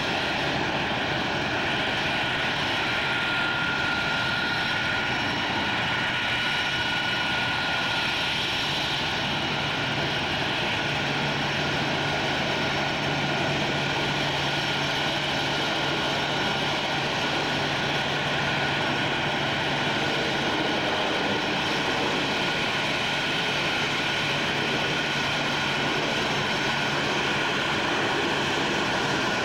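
McDonnell Douglas DC-8 freighter's four jet engines running at taxi power as it rolls past: a steady rushing jet noise with a few thin, steady high whining tones. A low steady hum strengthens about a third of the way in.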